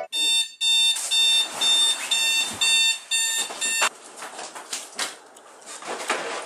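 Digital bedside alarm clock beeping in short electronic bursts, about two a second, cut off abruptly just before four seconds in. Fainter knocks and rustling follow.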